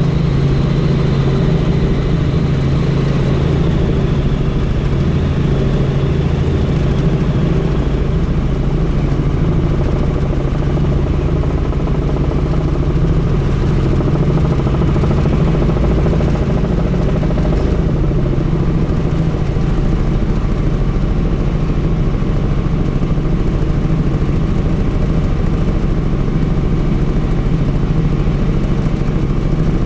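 Helicopter in flight: steady engine and rotor noise with wind rush, unbroken throughout, with a faint high whine fading out in the first few seconds.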